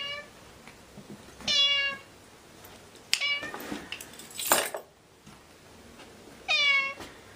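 A domestic cat meowing: three short meows, each falling in pitch, about a second and a half, three seconds and six and a half seconds in, after the tail of one at the very start. Between the second and third meows there is a breathy noise that peaks about four and a half seconds in.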